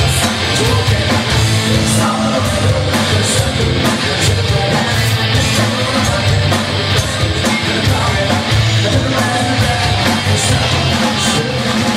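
Live rock band playing loudly: electric guitar, bass guitar and drums with a singer.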